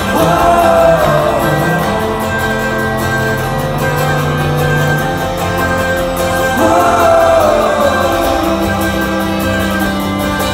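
Acoustic string band playing live, with a lead voice singing over acoustic guitars, banjo, cello, fiddle and mandolin. There are two sung phrases, each opening on a long held note, one at the start and one about six and a half seconds in.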